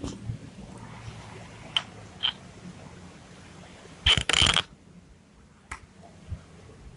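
Handling noise close to the microphone: a few soft clicks, then a loud, brief scraping rustle about four seconds in.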